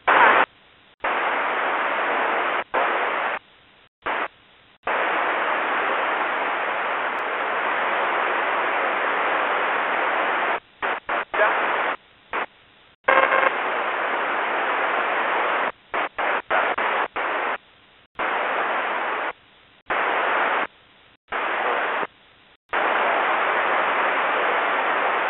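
Radio scanner receiving UHF aviation frequencies, putting out bursts of static hiss with no speech; the squelch opens and cuts off abruptly again and again, the longest burst lasting about six seconds.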